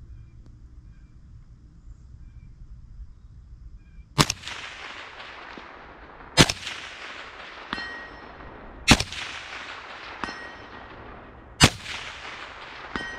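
Four shots from a Knight's Armament M110 semi-automatic 7.62 mm rifle, about two to three seconds apart, the first about four seconds in. About a second and a half after each of the last three comes a fainter, ringing smack of the bullet hitting the steel target at 350 yards.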